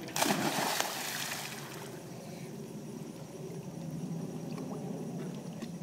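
A large dog plunging into a swimming pool with a loud splash just after the start, the splash fading over about a second and a half into steady lapping and sloshing of pool water as the dog swims underwater.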